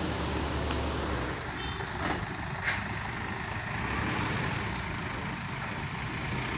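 Steady engine and road noise of a vehicle under way, with a short sharp click about two and a half seconds in.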